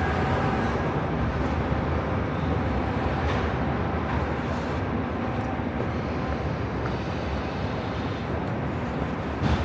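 City street ambience: a steady rumble and hum of passing traffic, with one short knock just before the end.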